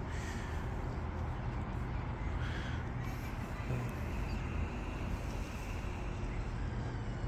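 Two short bird calls, crow-like caws, over a steady low outdoor rumble.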